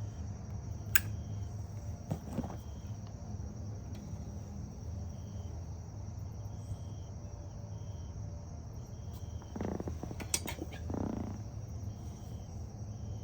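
Outdoor ambience: an insect chirping in short, high, repeated pulses over a low steady hum, with a few sharp clicks and a couple of soft breathy puffs near the end.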